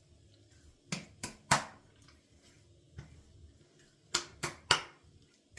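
Hands slapping an alcohol-based aftershave splash onto a freshly shaved face: two sets of three quick, sharp slaps, the first about a second in and the second about four seconds in.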